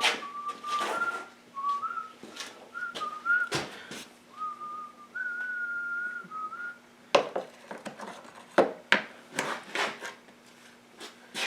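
A person whistling a tune, with held notes that step up and down, over clicks and clinks of small metal parts and tools being handled. The whistling stops about seven seconds in, leaving a run of sharper clicks and knocks.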